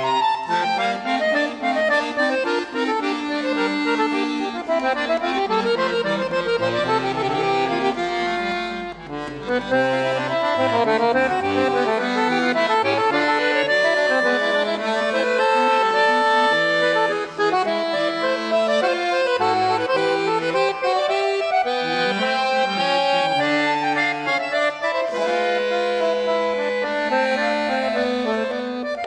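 Concert chromatic button accordion playing classical music solo, several lines moving at once in a continuous, busy texture.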